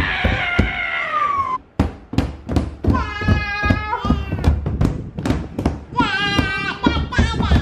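Small children slapping their palms on a tabletop in quick, uneven beats, with a toddler's high-pitched squeals about three seconds in and again near six seconds.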